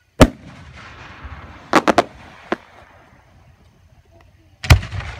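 Aerial firework shells bursting: a loud boom, then three quick sharp reports close together about a second and a half later and a single crack after them, then another big boom near the end. Each bang trails off in a fading rumble.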